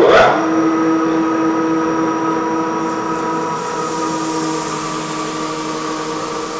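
Lagler TRIO three-disc planetary floor sander running steadily, a hum of several steady tones over a hiss. The high hiss grows about three and a half seconds in.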